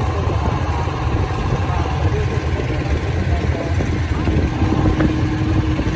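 Motorboat engine running steadily under way, a continuous low rumble.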